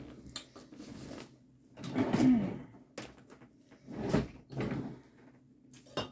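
Handling noise: four short bumps and rustles of things being moved about on or near a table, the loudest about two seconds in.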